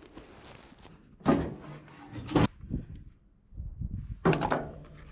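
Hands working on an old diesel tractor's engine bay and battery: a few dull clunks and knocks among softer handling noise, with a short break about three seconds in.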